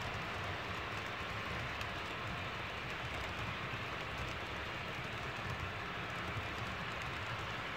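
Model train freight cars rolling past on track: a steady rolling noise of small wheels on the rails, with faint clicks.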